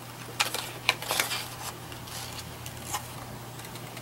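Small scissors snipping through cardstock: about five short cuts, most of them in the first two seconds and one more near the three-second mark.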